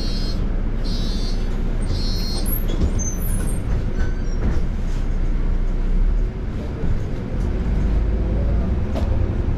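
City bus in motion, heard from inside: a steady low rumble of engine and road noise, with a few brief high squeals in the first two or three seconds.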